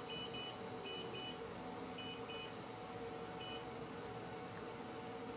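Short electronic beeps from a lipo laser slimming machine's touch-screen controls as its settings are changed. There are about eight of them, coming in quick twos and threes over the first three and a half seconds and then stopping, over a faint steady hum.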